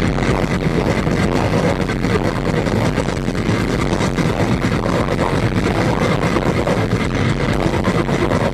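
Death metal band playing live, heard as a loud, dense wall of distorted guitars, bass and rapid drumming.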